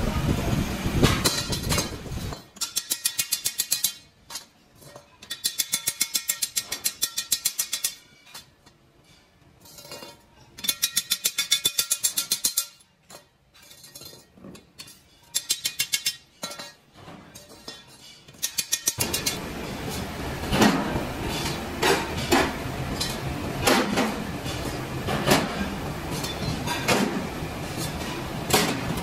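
Steel rickshaw rim bands being welded and handled. Through the first half come several bursts of rapid, evenly spaced crackling, a few seconds each. From about two-thirds in there is a steady workshop din with repeated metal clanks and clinks as the steel rings knock together.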